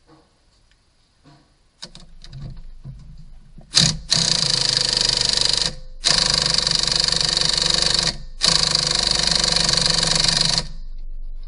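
Impact wrench hammering on the crankshaft pulley bolt in three bursts of about two seconds each, with short pauses between them. Light clicks and rattles of the tool being handled come first.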